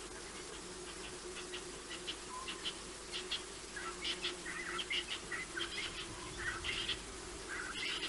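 Birds chirping in quick runs of short, high calls that grow busier about halfway through, over a steady low hum.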